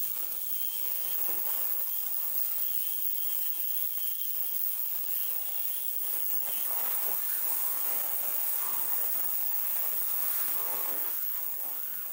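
Ultrasonic cleaner running: a steady buzzing hiss from its tank of heated water and metal cleaner, cleaning small Bing carburetor parts.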